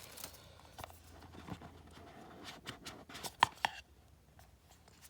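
Scattered small clicks, scrapes and rustles of a cardboard product box being handled and opened, with one sharp click about three and a half seconds in, then quieter.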